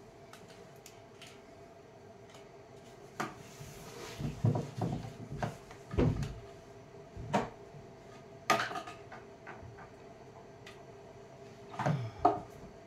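Irregular clunks and knocks of wood and metal, about eight in all, as a wooden drawer on metal ball-bearing slides is handled and fitted inside a workbench; the loudest comes about two-thirds of the way through.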